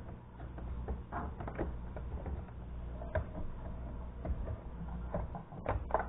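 Irregular small clicks and knocks of plastic parts being handled and fitted as a computer monitor's case is put back together, with a cluster of sharper knocks near the end, over a steady low hum.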